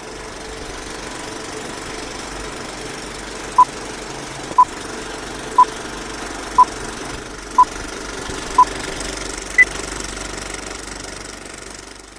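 Six short, identical electronic beeps one second apart, then a single higher-pitched beep a second later, over a steady mechanical rattling hum.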